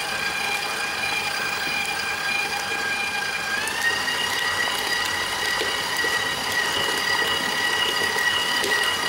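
KitchenAid Artisan stand mixer's motor running with a steady whine as it beats yeasted oliebol batter in its steel bowl; about three and a half seconds in the pitch steps up as the speed is turned higher. The batter is being mixed on to develop more gluten strands.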